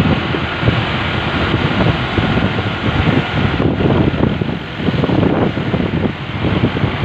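Wind buffeting the microphone of a moving motorbike, a loud, steady rush that swells and dips in gusts, over road and traffic noise.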